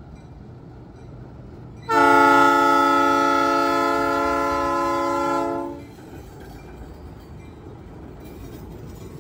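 ALCO RS-1 diesel locomotive's horn sounding one long multi-note blast of about four seconds, starting about two seconds in, over the low rumble of its turbocharged six-cylinder ALCO 539 engine as it pulls hopper cars.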